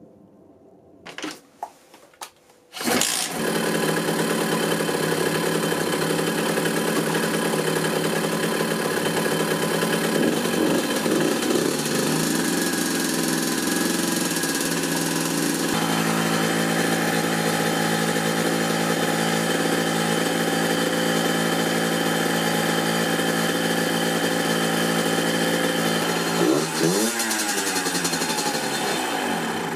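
Minarelli AM6 50cc two-stroke engine of a Rieju MRT moped catching after a few short cranking sounds about three seconds in, then running steadily at idle with its ignition advance set to 32°. Near the end the revs rise and fall a couple of times.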